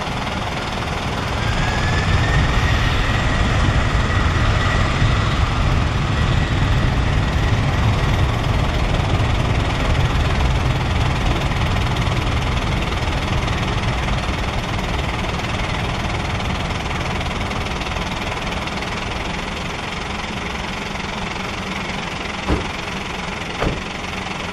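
Boeing 747-400's four General Electric CF6-80C2 turbofans at takeoff power as the jet rolls away down the runway: a loud low rumble with a fan whine that rises in pitch about two seconds in, fading slowly over the second half. Two sharp clicks near the end.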